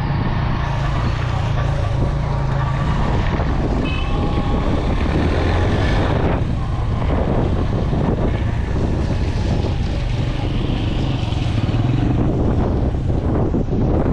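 Suzuki GS150 single-cylinder motorcycle engine running steadily while riding, with wind rushing over the microphone.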